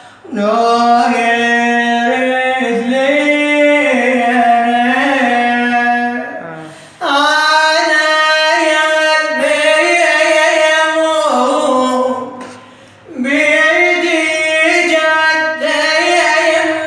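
A man singing unaccompanied in the style of an Iraqi Shia religious reciter: long, ornamented phrases in a high voice, broken by three short pauses for breath, the second about 7 seconds in and the third about 13 seconds in.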